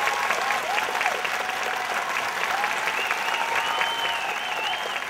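Audience applauding with dense clapping, with cheers and calls rising over it, especially near the end.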